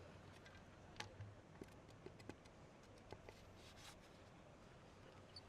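Near silence: faint background hiss with a few soft, short clicks scattered through it.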